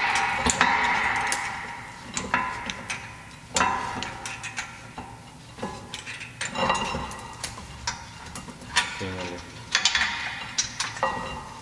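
Metal clicks, knocks and scraping from a VW Polo 6R rear brake caliper being moved about by hand on its bracket and disc. A scrape at first, then scattered sharp clicks, with a brief squeak about nine seconds in.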